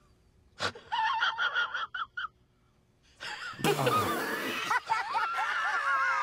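Edited-in meme sound: a sharp click, then a short burst of high, squeaky voice-like sounds, and from about three seconds in a wheezing, gasping laugh whose pitch wavers up and down.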